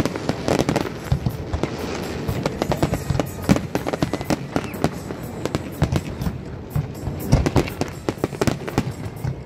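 Fireworks display: a dense, continuous run of shells bursting and crackling, with the sharpest bangs about a third of the way in and again past two-thirds.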